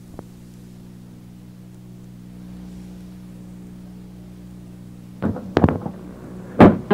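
Old audio cassette recording starting: a click, then a steady hum of the tape recording with no music for about five seconds. Near the end a guitar starts being plucked and strummed.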